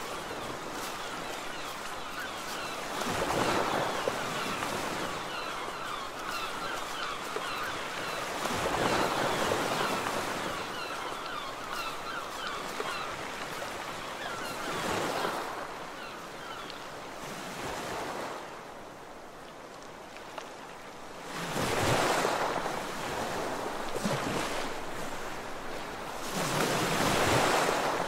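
Sea waves breaking on a shore, a surge of surf about every five to six seconds with a steady hiss of water in between.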